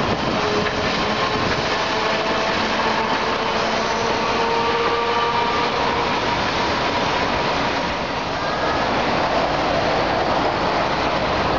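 A streetcar running along street tracks among city traffic: a steady rolling and road noise, with faint held tones partway through.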